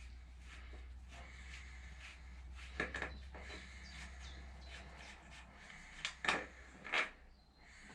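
A few light clicks and knocks of hand tools and engine parts being handled while an oil filter is taken off, a pair about three seconds in and three more between six and seven seconds, over a faint steady low hum.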